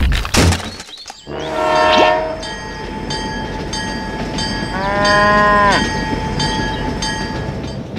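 A few clattering knocks, then a train sound effect: a steady rumble with wheels clicking over rail joints about twice a second and a horn call about a second and a half in. A cow moos once, drawn out, about five seconds in.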